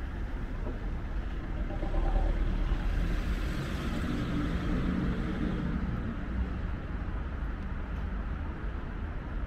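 City street ambience with a car passing close by, swelling about two seconds in and fading again by about six seconds.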